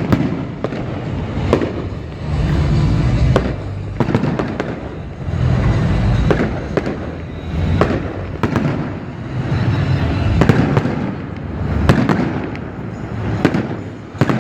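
Fireworks display going off: a rapid, irregular run of sharp bangs and cracks over repeated low booms from bursting shells.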